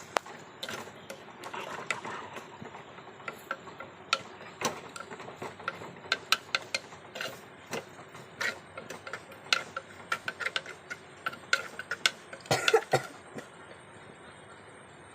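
A cooking utensil clicking and scraping against a pot at irregular intervals while chilli powder and turmeric are stirred and fried in oil, with a quick cluster of knocks near the end.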